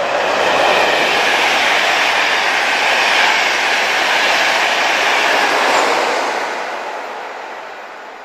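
Class 91 electric locomotive and its express coaches passing at speed on wet rails: a loud rushing of wheels and air that holds for several seconds and dies away over the last two.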